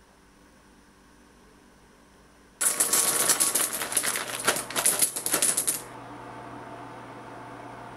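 White chocolate buttons poured from a plastic container into an empty glass bowl: a dense clatter of many small pieces hitting glass for about three seconds, starting suddenly and cutting off sharply.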